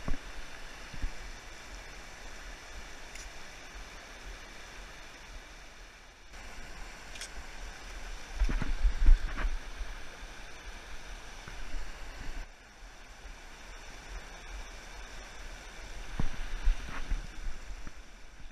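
Mountain river rushing over rocks and through riffles, a steady rush of water, with low gusts of wind buffeting the microphone at times, heaviest about halfway through and again near the end. The sound drops out briefly twice.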